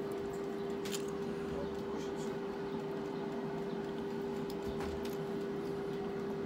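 A person chewing and biting into a roast chicken leg eaten by hand, with a few faint clicks, over a steady hum that is the loudest sound.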